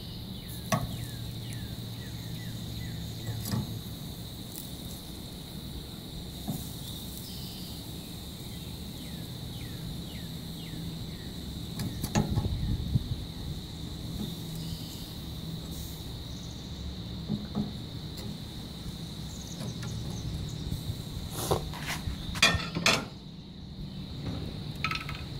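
Metal grill tongs clicking and scraping against a grill grate a few times while the meat is turned, with a cluster of clicks near the end. Under it runs a steady, high insect drone.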